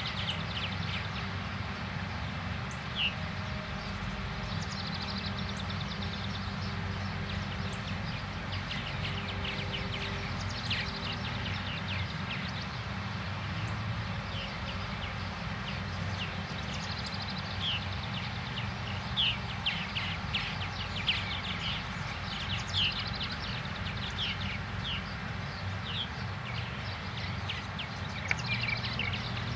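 Small birds chirping on and off over a steady low engine hum from farm machinery.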